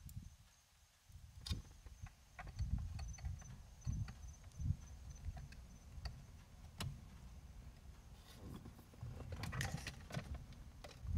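Faint scattered clicks, taps and rustling handling noises of hands working on wiring and small parts, over a low uneven rumble.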